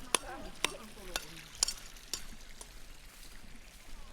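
A run of sharp clicks or taps about twice a second, growing fainter after the first couple of seconds.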